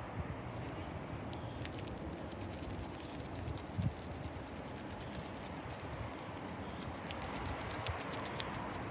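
Outdoor background noise at a soccer match: a steady hiss of open-air sound with faint scattered ticks and one dull thump just before the middle.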